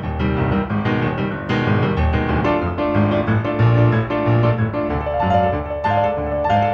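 Piano music with quickly changing notes over bass chords: the accompaniment score of a silent film.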